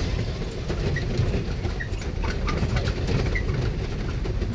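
Small tourist train running steadily, heard from aboard the carriage as a continuous low rumble, with light clicks and a few short, high chirps over it.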